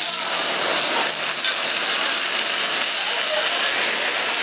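Rolled slices of meat sizzling on a hot cast-iron griddle, with a steady loud hiss as the meat is flamed with a torch.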